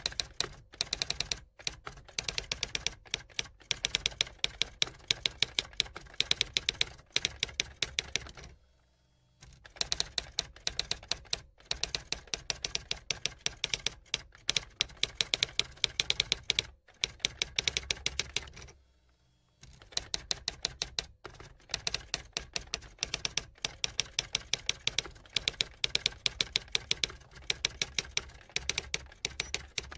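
Fast typing on a computer keyboard: a dense stream of key clicks in long runs, broken by short pauses about nine seconds in, again at about nineteen seconds, and near the end.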